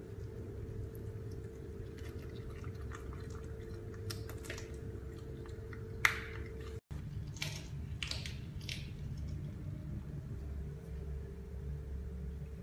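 Caracal chewing and biting raw chicken: wet, squishy chewing with scattered crunches and clicks, over a steady low hum. A sharp knock about six seconds in is the loudest sound.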